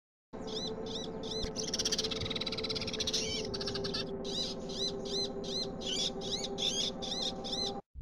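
Sparrows chirping: a short arched chirp repeated about twice a second, with a dense burst of flock chatter around two seconds in, over a steady low hum.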